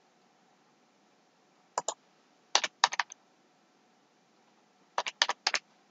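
Computer keyboard keystrokes, clicks in three short bursts about two, three and five seconds in, as a six-digit number code is typed.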